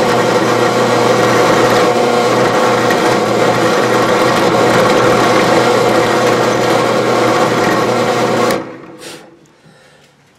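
Drill press motor running steadily while a 1/8-inch bit drills a test hole in a block of wood. The motor is switched off about eight and a half seconds in and winds down.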